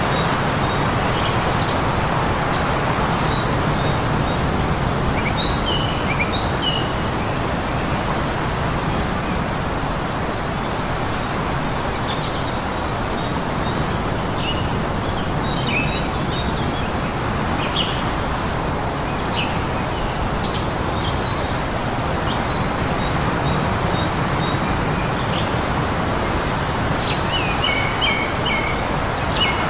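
Heavy wind blowing steadily in a blizzard, with small birds chirping over it in short scattered calls, busiest around the middle and again near the end.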